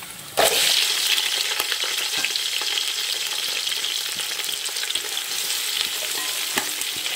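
Sliced onions dropped into hot oil, setting off a sudden loud sizzle about half a second in that carries on as a steady frying hiss with small crackles.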